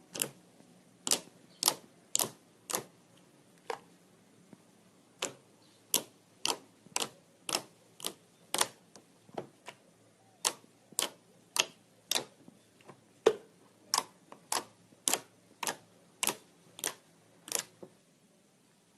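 Slime being pressed and poked, making sharp clicking pops about twice a second that stop shortly before the end.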